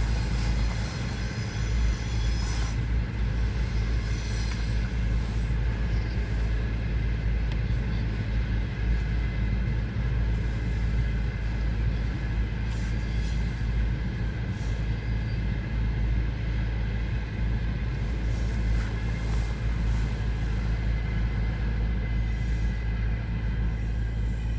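A train rolling past on the rails: a steady, unbroken rumble of wheels and cars with occasional faint clicks.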